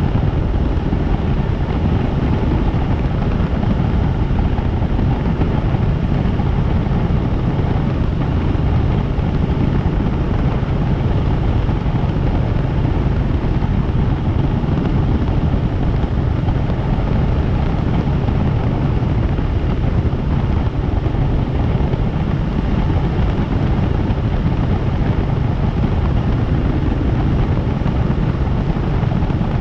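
Helicopter in flight: a steady, loud rush of rotor and engine noise that holds level without change.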